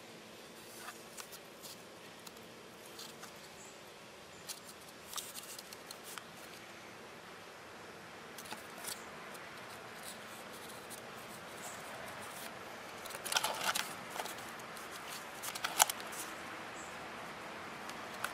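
Scissors cutting and handling cardboard: scattered snips and rustles, with a louder run of snips a little past the middle and a sharp snip near the end.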